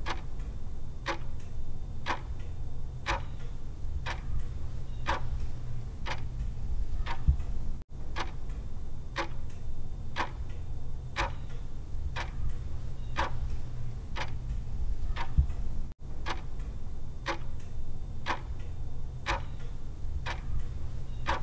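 Clock-like ticking, about once a second, over a steady low rumble. The sound cuts out briefly twice, about eight seconds apart, like a repeating loop.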